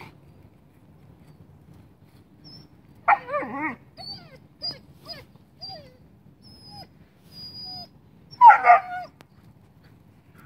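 German Shepherd puppy whining on the leash: two loud yelping cries, about three seconds in and near the end, with short falling whimpers between them.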